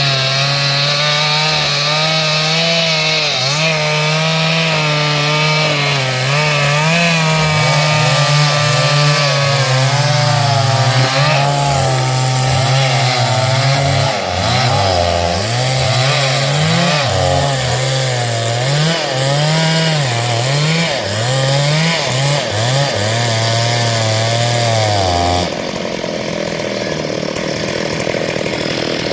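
STIHL MS382 two-stroke chainsaw cutting through hardwood under load, its engine pitch repeatedly dipping as the chain bogs in the cut and then recovering. About 25 seconds in the engine note breaks off abruptly and a quieter, steadier noise follows.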